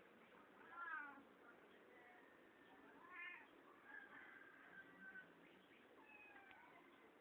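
Kittens mewing: several short, thin, high-pitched mews a second or two apart, the loudest about a second in with a falling pitch.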